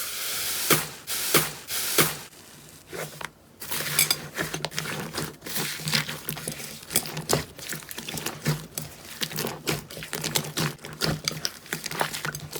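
Slime being squeezed and poked by hand, making a dense run of small crackles and pops.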